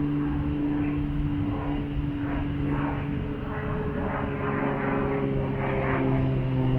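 Engine droning steadily, its pitch dropping a little partway through.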